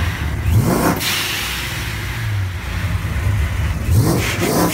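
Car engine idling with a low rumble and blipped twice, once about half a second in and again near the end. Each rev is a quick rising sweep in pitch.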